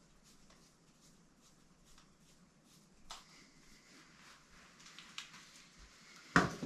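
Faint ticking and scraping of small screws being driven by hand into the plastic axle housing of an RC crawler, with a sharper click about three seconds in and a single loud knock near the end.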